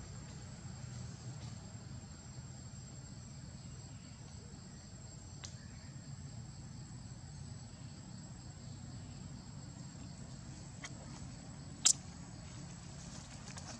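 Insects shrilling on one steady high note over a low background rumble. A single sharp click stands out near the end.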